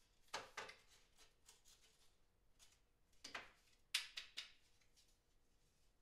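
Faint clicks and knocks of a car's license plate light housing being handled and turned over: two about half a second in, then a cluster of three or four between about three and four and a half seconds in.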